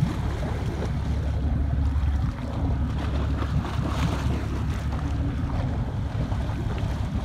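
Sea water washing and splashing along the boat's side as a gray whale swims just under the surface, with wind buffeting the microphone as a steady low rumble.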